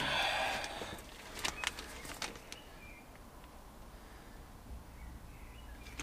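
Clear plastic bags rustling as they are handled, followed by a few light clicks and knocks. Faint bird chirps come from outside twice.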